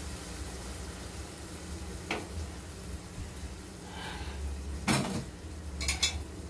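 Kitchenware clattering as a glass pot lid is picked up by a sink: a light click about two seconds in, a sharp knock about five seconds in, then a few quick clinks near the end, over a steady low hum.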